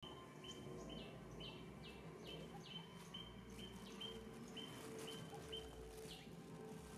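Faint bird calls: short high chirps repeated about twice a second, over a low steady hum.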